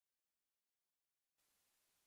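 Near silence: dead silence, then a faint steady hiss begins just over a second in.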